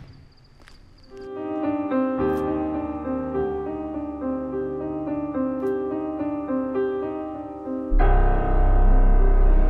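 Background piano music of slow held notes, starting about a second in; a fuller backing with heavy bass joins near the end.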